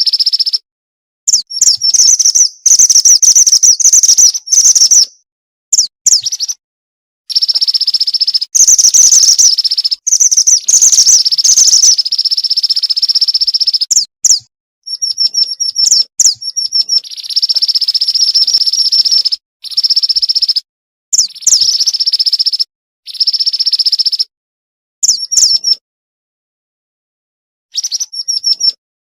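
Lure recording of a female mountain mantenan bird calling: runs of quick high chirps and several long shrill trills, some lasting two or three seconds. The bursts are separated by abrupt gaps of dead silence.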